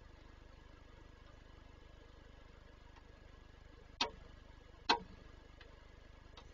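Two sharp taps about a second apart, followed by two faint ticks, over a steady low hum.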